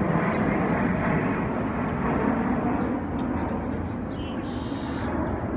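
Steady rushing rumble of distant engine noise, slowly fading.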